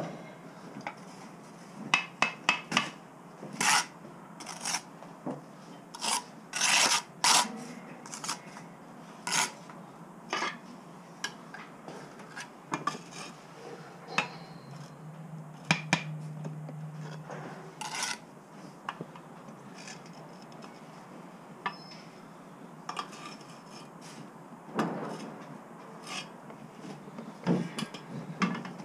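Bricklaying hand work: irregular scrapes and sharp taps of tools against brick and mortar, with a few longer rasping scrapes.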